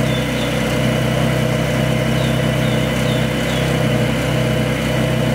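A vehicle engine running at a steady idle, giving a constant low hum that does not rise or fall.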